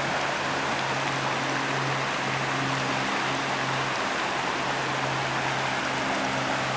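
Steady rushing of a river or stream, with a low hum that comes and goes underneath.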